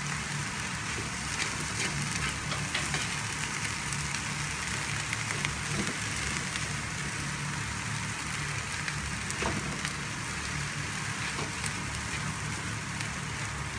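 Shredded cabbage and egg sizzling steadily in hot oil in a frying pan as they stir-fry, with a few light scrapes and taps of the spatula turning them.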